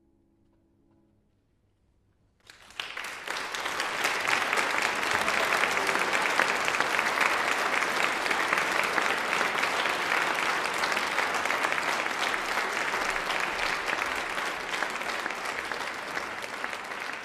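The last chord of a grand piano fades faintly into near silence. About two and a half seconds in, an audience starts applauding and keeps up steady, loud applause.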